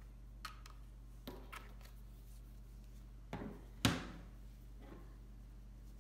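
Handling noise of a plastic power bank and USB cable on a wooden tabletop: a few light clicks and taps, with one sharper knock about four seconds in, over a faint steady low hum.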